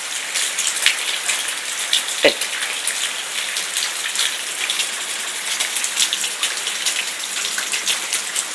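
Steady patter of rain, a hiss full of small crackly drop ticks. About two seconds in there is a brief sound that falls in pitch.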